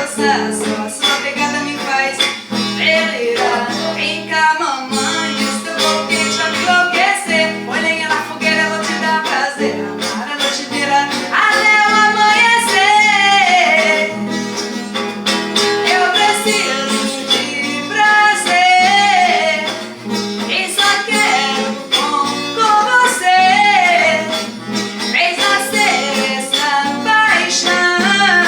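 A woman singing a song over guitar accompaniment, holding some long notes with vibrato.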